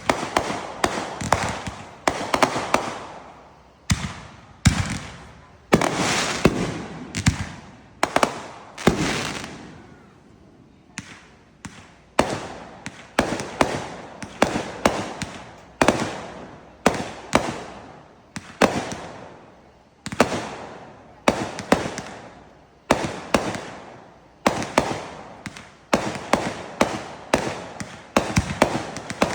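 Fireworks going off in a steady barrage of sharp bangs, one or two a second, each with a short rumbling tail, with a brief lull about ten seconds in.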